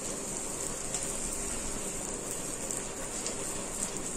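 Puris deep-frying in very hot oil in an iron kadai: a steady sizzle with light crackles as the slotted spoon bastes them and they puff up.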